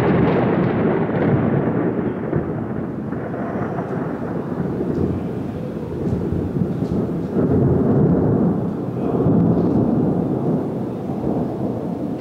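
Thunder rolling in a long, continuous low rumble. It eases after the start and swells again about two-thirds of the way through.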